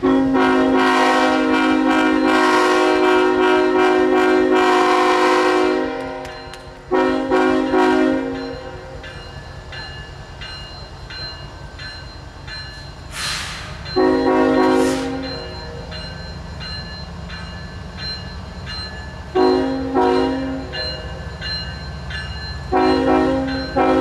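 CSX diesel freight locomotive's air horn sounding a chord: one long blast of about six seconds, then short sets of quick, stuttering blasts about every five seconds. Between the blasts the locomotive's diesel engine rumbles as the train departs.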